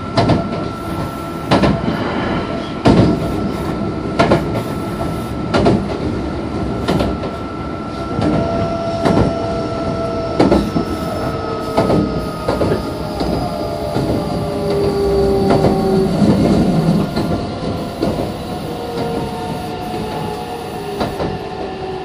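Meitetsu 2200 series electric train heard from on board: wheels click over rail joints at a steady pace, about one every second and a half. Motor tones hum under the clicks and fall steadily in pitch through the second half as the train slows.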